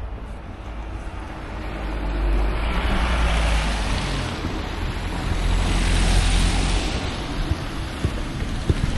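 Road traffic: two vehicles passing close by in turn over a low engine rumble. Their tyre noise swells and fades, the first about three seconds in, the second about six seconds in.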